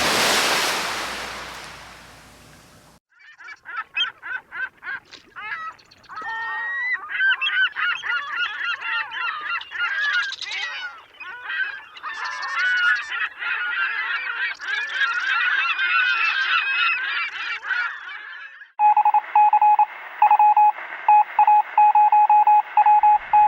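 Edited-in sound effects: a loud burst of hiss that fades over about three seconds, then a flock of geese honking over one another for about fifteen seconds. Near the end a high beeping tone starts, cutting in and out rapidly.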